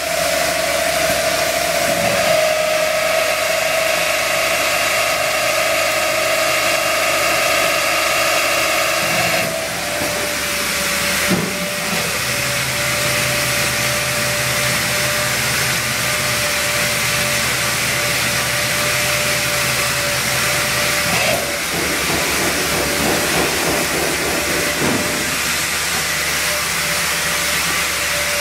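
Nine-spindle automatic drilling and tapping machine running: a steady motor whine over a constant hiss. The sound changes about ten seconds in, when higher tones drop out, a low hum joins while the spindles tap, and the sound shifts again about twenty-one seconds in.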